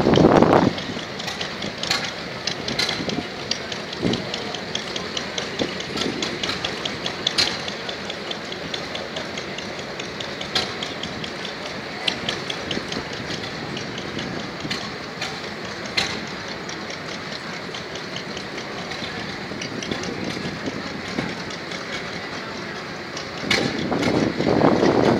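Vintage stationary engine running, heard as a steady mechanical clicking clatter over a low hum. A louder rushing noise comes in near the start and again near the end.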